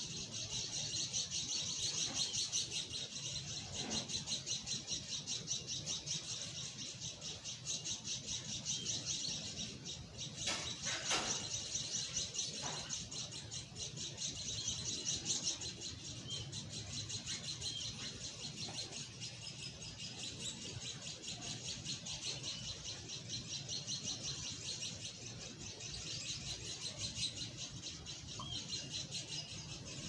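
A steady chorus of fast, high-pitched chirping, with a few brief clicks about ten to thirteen seconds in.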